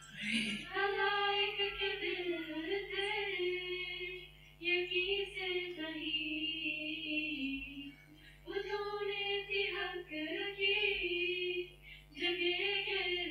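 Female voices chanting an Urdu nazm, a devotional poem, with no instruments. It is sung in long melodic phrases with short pauses between them.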